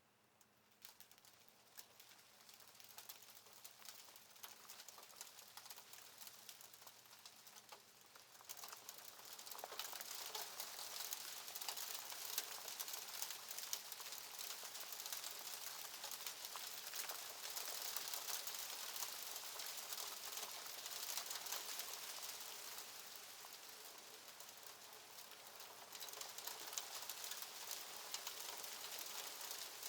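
Soft hailstorm: a dense patter of small hailstones ticking on a surface. It begins faintly about a second in, thickens, and grows heavier about nine seconds in, then goes on steadily.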